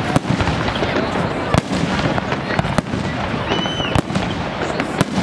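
Aerial firework shells bursting one after another over a dense crackle of stars, with many sharp bangs. A short whistle sounds about three and a half seconds in.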